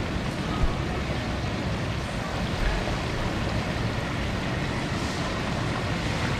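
Steady rushing roar of propane turkey-fryer burners, with hot oil bubbling around a turkey held in the pot.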